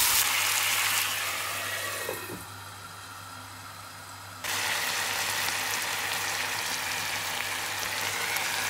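Chicken pieces sizzling in oil in a frying pan. In the middle the pan is covered with a glass lid and the sound drops to a quieter, muffled simmer; about four and a half seconds in, steady sizzling of chicken frying in oil returns suddenly.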